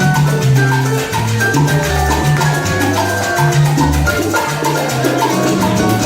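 Live salsa band playing: a bass line moving under a short, repeating melodic figure, with dense, steady hand percussion.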